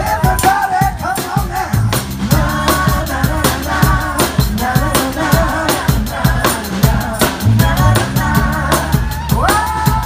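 Live rock band playing with a steady drumbeat, bass and guitar, with a male lead vocal and a female backing vocal singing along.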